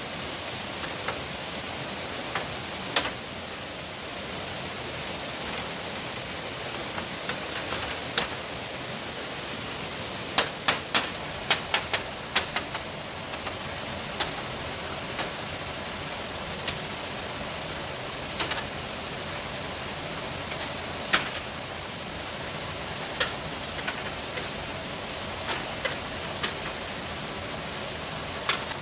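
Sharp knocks of tools striking bamboo, single strikes every few seconds and a quick run of about six near the middle, over a steady outdoor hiss.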